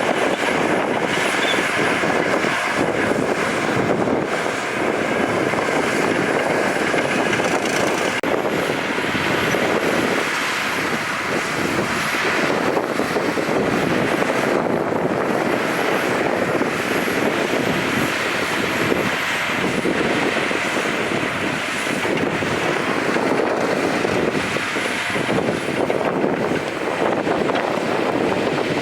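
Heavy diesel earthmoving machinery running steadily: the engines of a bulldozer and dump trucks at work, a continuous loud drone that swells and eases slightly.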